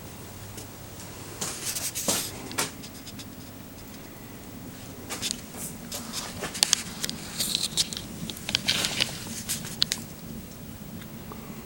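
Wood fire burning in a home-made fire-can stove with a strong chimney draft, crackling with irregular sharp snaps in clusters over a steady low hum.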